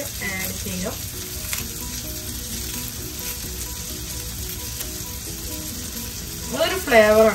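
Food sizzling steadily in a frying pan of peppers, crab sticks and pasta. A short voice sound, the loudest thing here, comes near the end.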